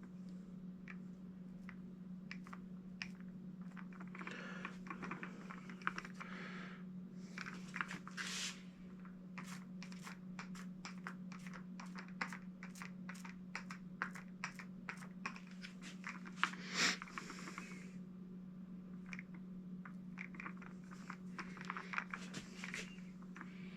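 A foam paint roller rolling paint over a sign's lettering, making a dense, irregular sticky crackling and clicking, with a steady low hum underneath.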